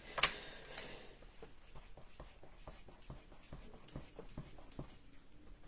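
A graphite pencil set down on a cutting mat with a sharp click, a lighter click shortly after, then faint scattered taps and rustles of hands moving over drawing paper.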